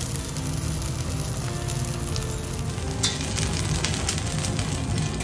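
Shark fin frying in a pan, a steady soft sizzle. About three seconds in, a sharper crackling sizzle as a ladle works liquid around a hot wok.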